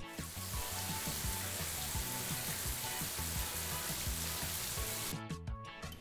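Steady, even hiss of noise laid over upbeat guitar music with a regular beat; the hiss cuts off suddenly about five seconds in and the music carries on alone.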